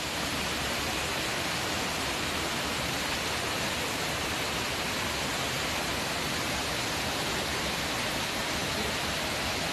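Water rushing steadily down a stepped rock cascade into a stream, an even rush with no breaks.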